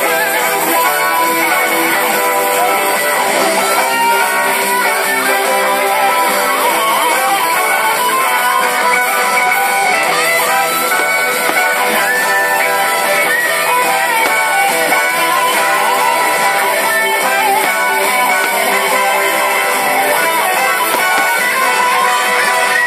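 Rock music led by guitars, dense and steady without a break.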